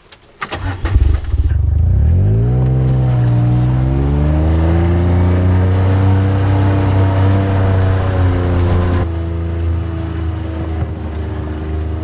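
John Deere Gator utility vehicle's engine starting about half a second in. It then rises in pitch as the vehicle pulls away and runs steadily while driving. The engine note changes abruptly about nine seconds in.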